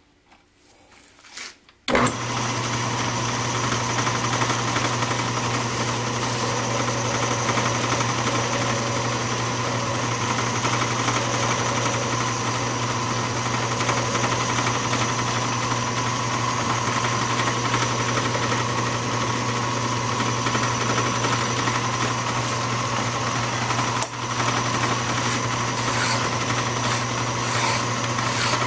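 Craftsman 109 metal lathe switched on about two seconds in, then running steadily with a hum and a constant whine while turning a small steel workpiece. Near the end, faint scratching as a hand file is held against the spinning work.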